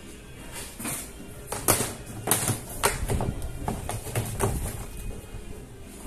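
Irregular sharp knocks and clatter from hand work on a top-load washing machine's tub, about a dozen hits over a few seconds.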